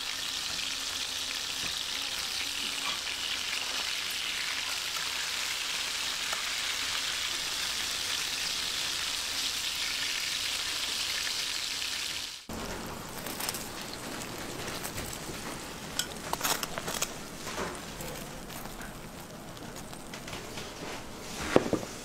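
Hot butter sizzling steadily around steak and bread slices on a hot tray. About twelve seconds in it cuts to quieter sizzling with scattered crackles and clicks, and one sharp click near the end.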